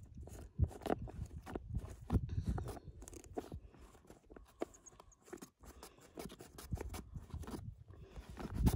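Irregular scraping, clicks and low thumps from handling a float tube's inflation valve, with a ribbed pump hose fitted to it, and the tube's nylon cover.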